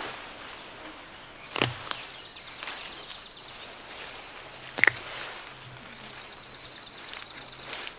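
Grass and leafy undergrowth rustling as green plant stalks are pulled and snapped off by hand, with a sharp snap about a second and a half in and a louder one about five seconds in.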